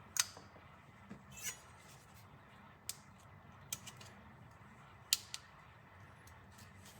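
A handful of sharp, scattered metallic clicks and taps, such as a knife blade and tools being handled and set against a work surface, over a faint steady hum.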